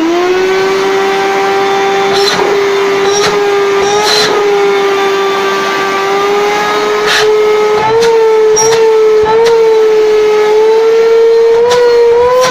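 Rowenta 1700 W vacuum cleaner motor spinning up and then running with a loud, steady whine. Its pitch rises a little and wavers in the second half, with a few short knocks, as the suction is tested. It is noisy, which the repairman puts down to the missing inlet filter.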